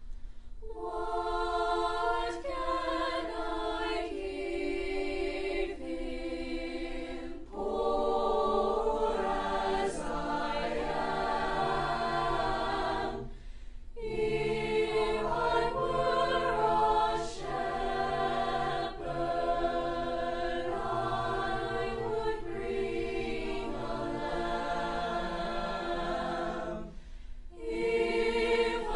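Student choir singing a holiday song, the phrases broken by short pauses about 7, 13 and 27 seconds in.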